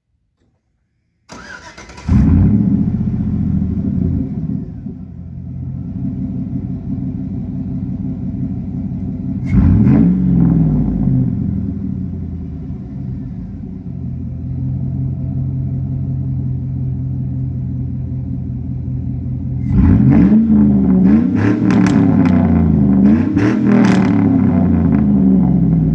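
Chevrolet 4.8-litre LS V8 cranked and started, catching with a loud flare and settling to idle, its exhaust running through an 8-inch Cherry Bomb muffler, 5-inch tips and stock catalytic converters. It is revved once, and then blipped several times in quick succession near the end.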